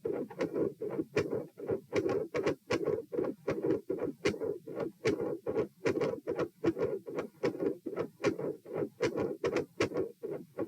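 Heart sounds heard through a stethoscope at the pulmonic area: a quick, steady train of paired lub-dub beats. The rate is raised by repeated dry swallowing, which the recordist asks may be a swallowing-induced atrial tachycardia with premature atrial contractions.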